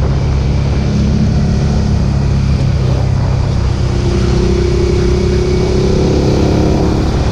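Suzuki SV650 V-twin running through a Roadsitalia aftermarket exhaust with the dB-killer fitted, holding a steady engine note while under way. About halfway through, a higher tone comes in and rises slightly.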